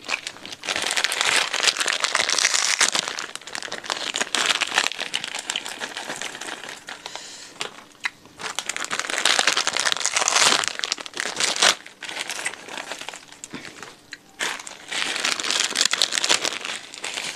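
Thin plastic bags of puffed crackers (kerupuk) crinkling as they are handled and emptied onto a plate, with the crackers rustling inside. The sound comes in three bursts of a few seconds each, with quieter stretches between them.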